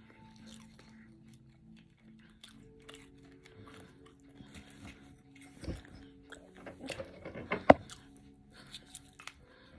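Close-miked eating: biting and chewing catfish, with a few sharp crunches in the second half, the loudest about three quarters of the way through. Soft background music runs underneath.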